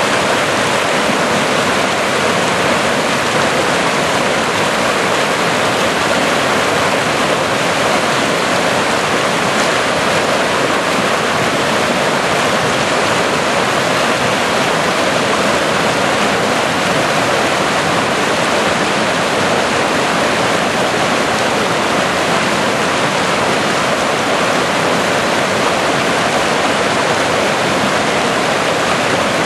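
Fast-flowing stream, running swift after rain, rushing and splashing over granite boulders in whitewater: a loud, steady rush of water.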